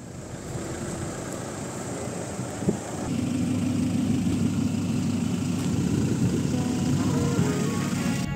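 An off-road 4x4's engine running, with a steady rumble. There is a single knock a little under three seconds in, after which the engine gets louder and holds a steady low hum.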